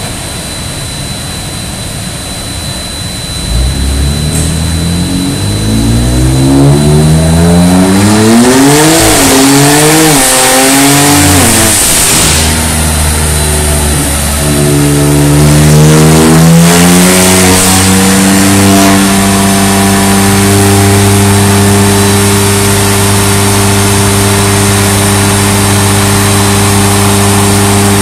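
BMW F80 M3's twin-turbo straight-six through an Armytrix cat-back valvetronic exhaust, run on a chassis dynamometer. It accelerates with pitch climbing in steps, lifts off about twelve seconds in, then builds again and holds a steady high drone from about nineteen seconds on.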